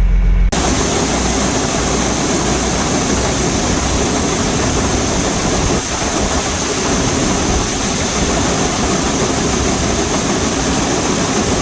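Grain truck's engine running under a loud, steady rushing noise, starting abruptly about half a second in.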